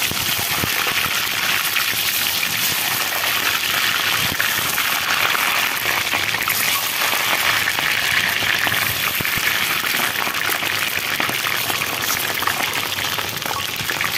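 Peeled boiled eggs deep-frying in a pan of hot oil: loud, steady sizzling with dense fine crackling.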